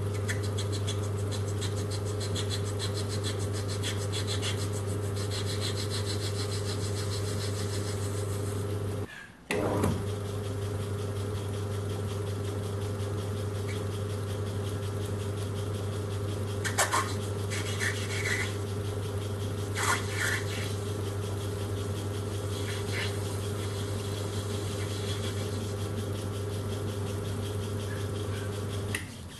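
Schaublin 102 metal lathe running steadily with a four-jaw chuck spinning, its motor and drive giving a constant hum. A few brief scrapes come through as the tool cuts the thread off the fitting, twice in the second half. Near the end the lathe is switched off and the hum dies away.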